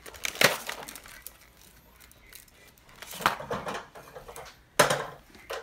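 Small hard plastic toy food pieces clicking and rattling as they are picked out of a clear plastic blister tray, with three louder sharp clicks among softer scattered ones.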